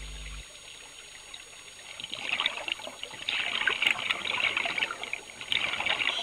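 Bubbling and crackling of a scuba diver's exhaled air leaving the regulator underwater, in two long exhalations: the first begins about two seconds in, the second near the end.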